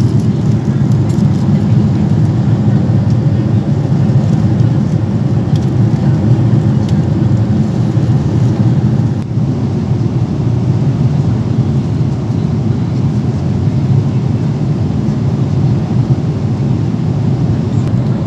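Airliner cabin noise at cruise altitude: a steady, low rush of jet engine and airflow noise, dipping briefly about nine seconds in.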